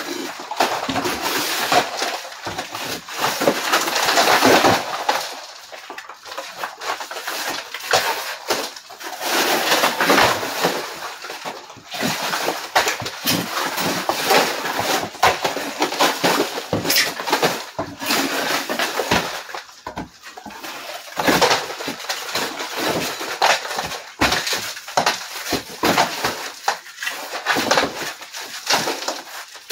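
Horsehair plaster being broken and pried off wooden lath with a hammer and crowbar: irregular knocks and cracking, with plaster crumbling away from the wall throughout.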